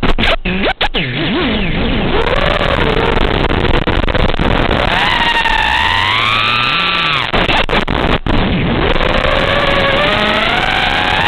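FPV racing quadcopter's electric motors and propellers whining in flight, the pitch rising and falling with the throttle over a rushing hiss. The sound cuts out briefly a few times near the start and once more later.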